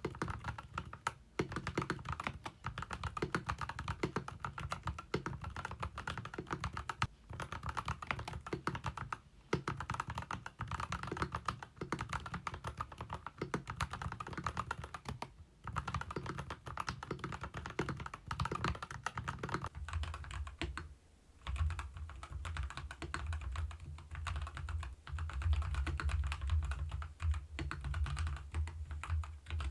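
Kemove K87 1980 mechanical keyboard being typed on fast, a dense stream of key clacks. After a brief pause a little over two thirds in, the typing carries a deeper low end.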